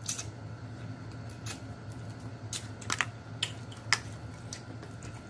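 Close-miked eating sounds: about half a dozen sharp, irregular wet clicks and smacks of mouth and fingers while eating shrimp from a seafood boil, over a steady low hum.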